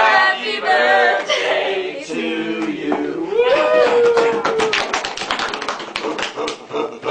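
Voices, one of them holding a long note, then a quick run of sharp taps through the last few seconds.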